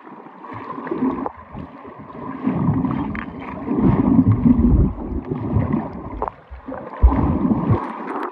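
Swimmer moving underwater in a pool, heard with the microphone submerged: muffled rumbling and bubbling of water and air bubbles, which swells loudest through the middle and again briefly near the end.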